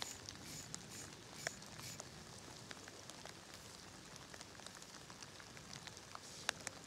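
A sharp knife blade shaving hair off a forearm: a faint crackle with scattered tiny clicks as the hairs are cut, the sign of an edge keen enough to shave.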